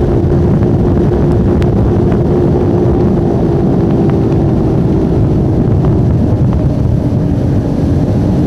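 Skater catamaran powerboat's engines running at speed with a loud, steady drone, mixed with wind buffeting the microphone. The engine note drops slightly about six seconds in and climbs again near the end.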